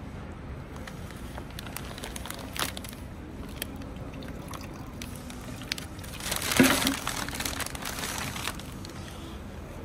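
Kraft paper bag rustling and crinkling as it is opened and handled, with scattered crackles and one louder crumple about six and a half seconds in.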